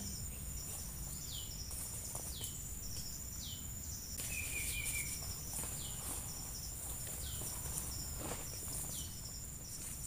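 Tropical forest insects droning with a steady high whine, joined by a repeating series of short falling chirps. A brief bird trill comes in about four seconds in.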